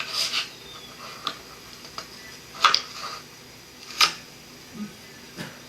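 A handful of short, light clicks and knocks, about six of them, scattered irregularly over a low steady hiss.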